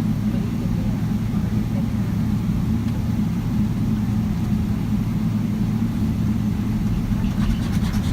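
Steady low engine drone heard inside the cabin of a Boeing 777-300ER airliner, with faint rattling clicks near the end.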